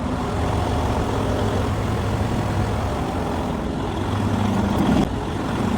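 Semi truck's diesel engine running steadily at idle.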